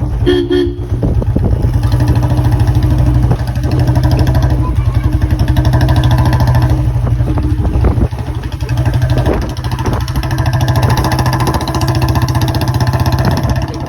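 Royal Enfield Bullet Classic 350's single-cylinder engine running through a 'Long Punjab' small-mouth aftermarket silencer while riding at low speed, with a steady rapid exhaust beat that dips briefly about eight seconds in.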